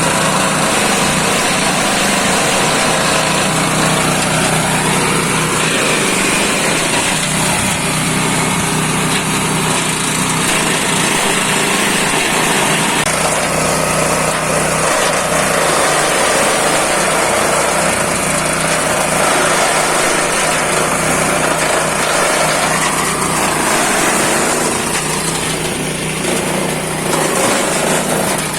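Multipurpose forage and compost chopper machine, driven by a small engine, running steadily; the level dips slightly near the end.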